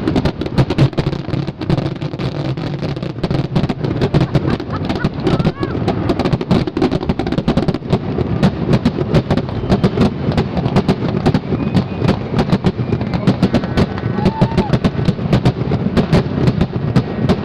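Fireworks finale: aerial shells bursting in quick succession, a dense stream of sharp cracks and booms over a continuous rumble.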